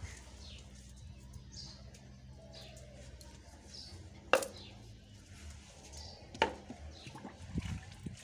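Two sharp clicks about two seconds apart from the parts of a field-stripped Beretta 9mm pistol being handled during cleaning, over a bird's short falling chirp repeating about every two seconds and a low steady hum.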